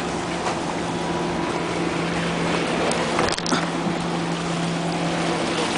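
Steady rushing of the sea against shore rocks and wind on the microphone, over a constant low motor hum, with a single short knock about three seconds in.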